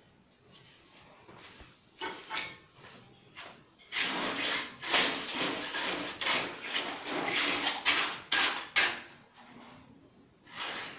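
Mason's trowel scraping and spreading wet concrete over a 2-inch kitchen counter slab, a few scattered strokes at first, then a dense run of short scraping strokes from about four seconds in to about nine seconds.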